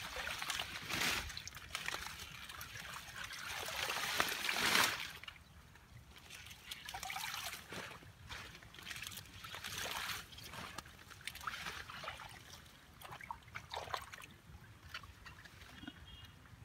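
Hands splashing and sloshing in shallow pond water while pulling up water hyacinth, with water trickling off the lifted plants. The sound is loudest about a second in and again around four to five seconds in, then settles into smaller, scattered splashes.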